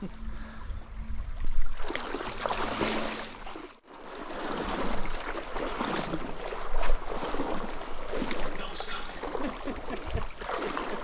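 Stream water rushing and splashing close to the microphone, a steady noisy wash with small crackles that drops out briefly about four seconds in.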